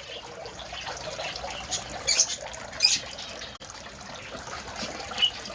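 Small aviary birds such as budgies and finches chattering steadily, with a few sharp high chirps about two and three seconds in.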